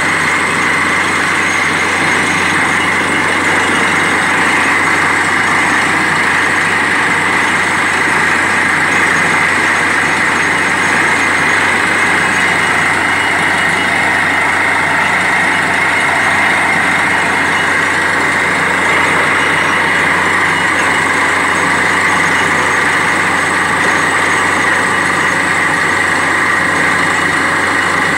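Truck-mounted borewell drilling rig running loud and steady as it drills, its machinery droning evenly with no change.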